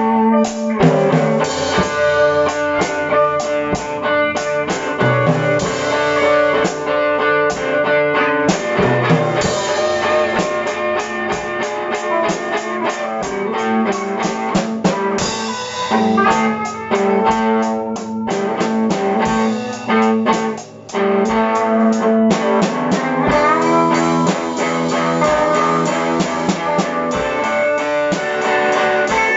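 Live blues jam: electric guitar played over a drum kit keeping a steady beat with cymbals. The loudness drops briefly about two-thirds of the way through.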